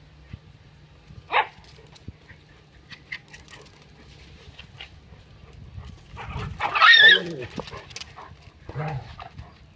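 Dogs barking and yelping in play. One sharp yelp comes about a second in, the loudest run of barks and yelps about two-thirds of the way through, and a short bark near the end.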